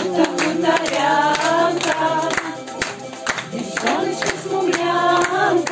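A woman singing a song over backing music with a steady beat.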